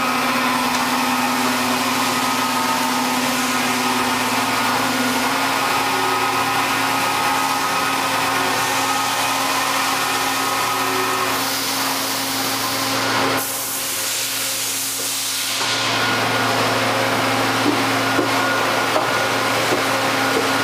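A 1993 Niigata HN100B horizontal machining center running, a steady mechanical hum and whine from its motors and pumps. About thirteen seconds in, part of the hum drops away for two or three seconds and then comes back.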